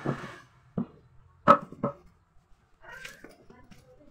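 Thick wooden planks knocked together and set into place while a frame is assembled: a few sharp wooden knocks, the loudest about a second and a half in, then a softer scrape.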